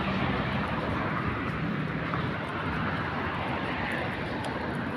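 Steady, even roar of distant engine noise, with faint low hums and no distinct events.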